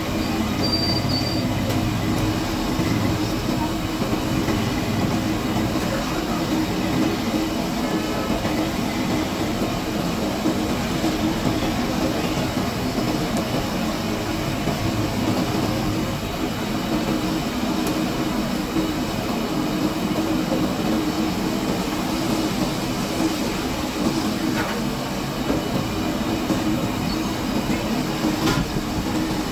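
Samosas deep-frying in a large karahi of hot oil: a steady sizzle and bubbling, over a continuous low rumble.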